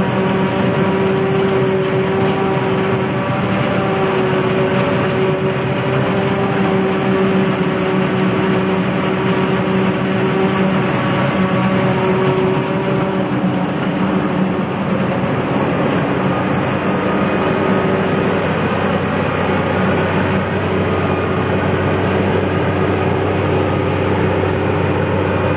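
Claas Jaguar forage harvester running at work, its engine, maize header and chopper making a loud, steady drone with a whine over it. The whine changes about halfway through.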